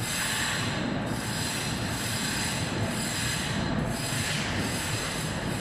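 Steady drone of running air-conditioning plant machinery: a constant low hum and hiss with a faint high-pitched whine.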